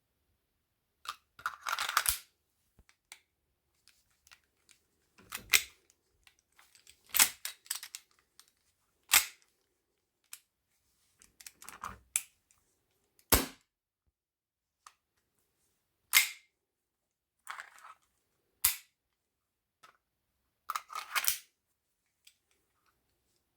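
Airsoft replica guns being handled and worked: about a dozen sharp mechanical clacks and snaps, one every second or two, some single and some in short rattling clusters.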